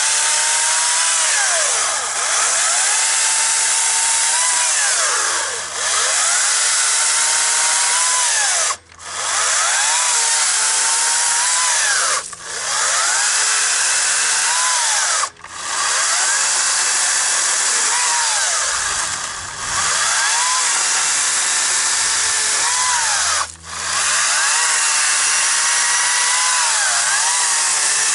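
Greenworks 60V cordless brushless electric chainsaw cutting through logs: a steady motor whine that sags in pitch as the chain bites into the wood and rises again as it frees up. The saw stops briefly four times, about 9, 12, 15 and 23 seconds in, as the trigger is let go between cuts.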